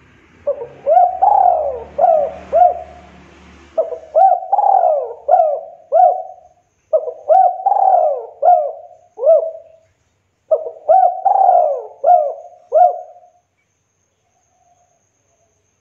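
Spotted dove cooing: four phrases of about five quick notes each, with short gaps between the phrases.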